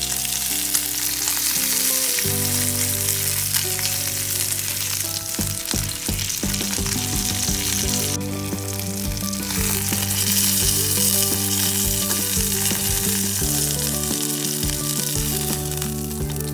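Chicken drumsticks sizzling as they fry in hot oil in a cast-iron skillet: a steady hiss, with a few sharp clicks around the middle.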